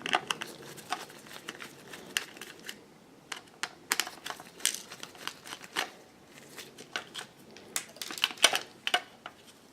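Small irregular clicks, taps and crinkling rustles of a digital kitchen scale's plastic casing and circuit board being handled during disassembly.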